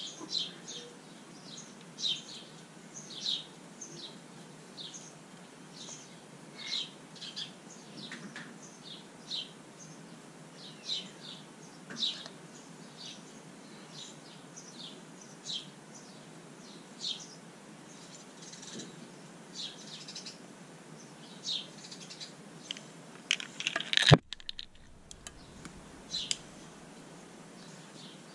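Small birds chirping in the background: many short, high chirps, one or two a second. About 24 seconds in comes a single sharp click, after which the steady background hiss briefly drops out.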